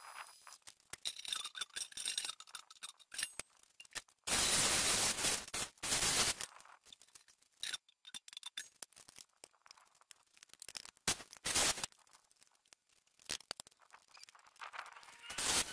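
MIG welding on a steel propane-tank door: bursts of arc crackle, the longest about two seconds a few seconds in and shorter ones later, with small clicks and knocks of metal handling between.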